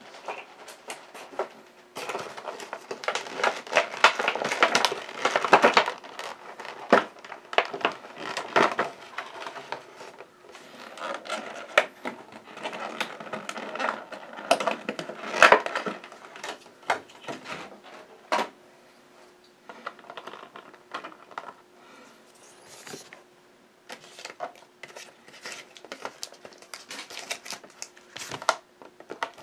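Plastic and cardboard packaging of a trading-card collection box being handled: rustling and crinkling with scattered clicks and taps, busiest in two spells and sparser in the second half.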